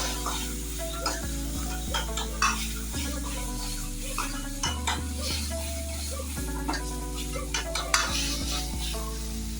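Chicken frying and sizzling in a kadai while a metal spatula stirs it, with frequent clicks and scrapes against the pan.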